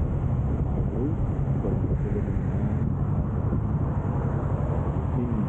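Kawasaki Z650's parallel-twin engine running steadily under way.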